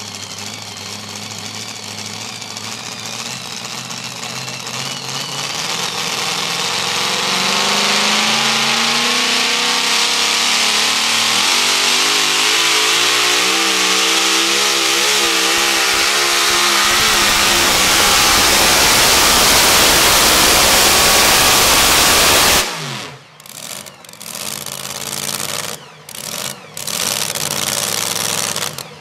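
Supercharged engine of a modified two-wheel-drive pulling truck at full throttle under sled load, its pitch climbing and wavering and growing louder as the pull goes on. The sound cuts off suddenly about three-quarters of the way in, leaving quieter, uneven background noise.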